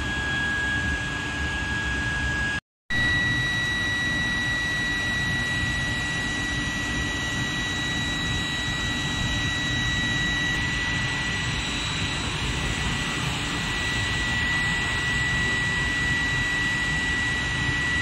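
Steel pipe induction heating line running: a steady high whine from the induction heating coils over a constant machine hum. A brief gap comes about three seconds in, and after it the whine sits slightly higher.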